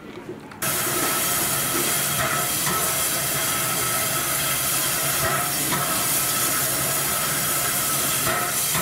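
Steam locomotive venting steam: a loud, steady hiss that starts abruptly about half a second in and holds.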